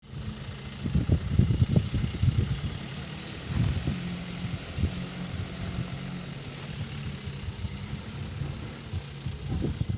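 Hino 4x4 truck's diesel engine running with a steady low hum. Irregular low thumps come in a cluster about a second in and a few more near the end.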